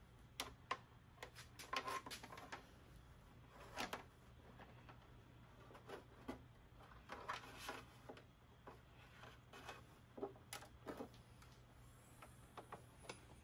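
Faint, scattered clicks and light taps of hands handling a small plastic camera module and touching a car's trunk lid, with a few brief rustles over a low steady hum.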